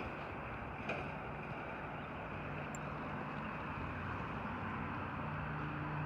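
Steady road and traffic noise of a vehicle passing by, with a low engine hum that grows louder near the end.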